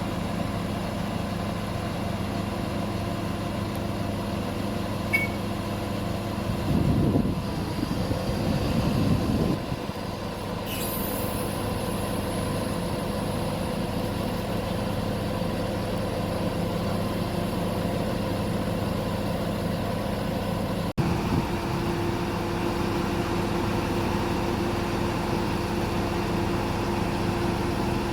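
Truck crane's diesel engine running steadily, with a louder, rougher stretch about seven to nine and a half seconds in and a short hiss near eleven seconds.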